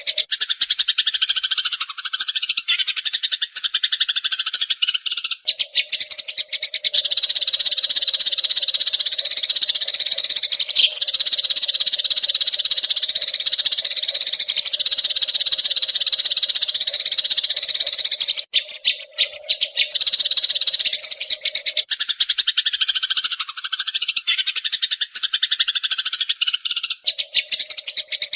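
Eurasian tree sparrows chattering in a dense, unbroken stream of rapid chirps, with a steady lower drone that drops out and returns a few times.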